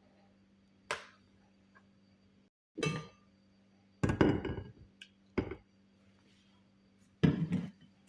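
Kitchenware knocked and clinked on a counter: a handful of short, separate knocks and clinks, the loudest about four seconds in and near the end.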